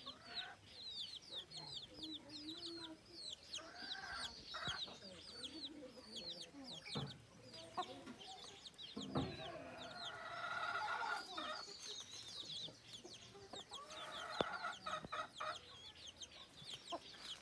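Chicks peeping continuously, many short high falling cheeps a second, while a brooding mother hen clucks to them in several low bouts.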